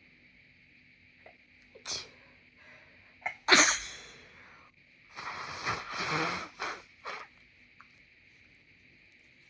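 A congested person sneezing once, loudly and suddenly, about three and a half seconds in, after a short sharp breath. About two seconds of further noisy nasal sound follow, ending in two short bursts.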